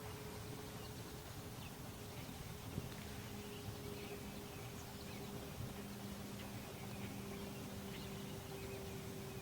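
Faint outdoor ambience: scattered short, faint bird chirps over a steady low hum and background noise.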